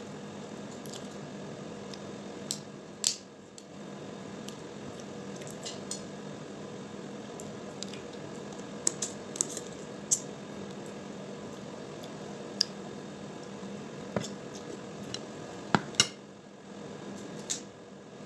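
Cooked crab legs being cracked and picked apart by hand and eaten: about a dozen sharp cracks and clicks, irregularly spaced, over a steady low hum.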